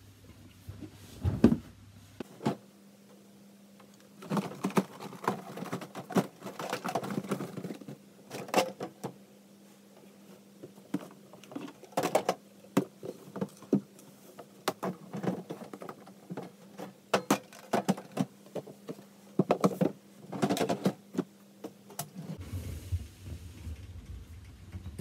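Boxes being handled, shuffled and pushed onto shelves: irregular bursts of knocks, taps and scraping.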